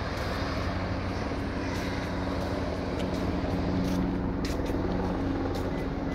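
Diesel engine of a heavy dump truck running steadily at low revs, a constant low hum.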